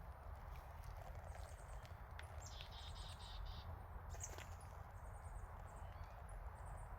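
Faint, short, high-pitched bird chirps over a steady low background rumble: a quick run of repeated notes a little over two seconds in, a single falling chirp about four seconds in, then a few thin high notes.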